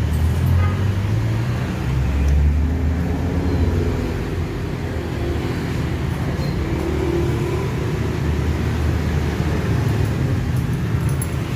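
A motor vehicle engine running, a steady low rumble.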